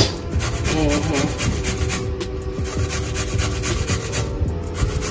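Peeled banana being grated by hand on a stainless-steel box grater, repeated rasping strokes of the soft flesh against the metal teeth.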